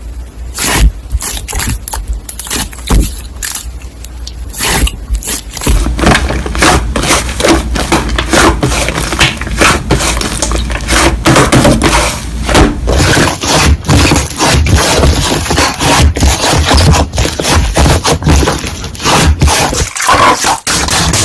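Slime being squished and worked by hand, giving dense, irregular crackling and popping clicks that grow busier after about six seconds.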